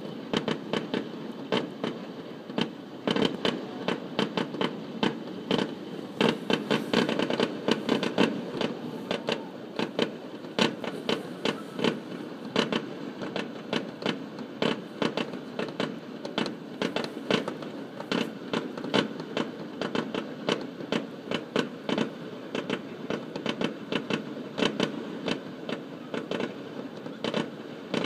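Distant fireworks finale: a fast, irregular string of pops and bangs from shells bursting, several to the second, over a steady background hum.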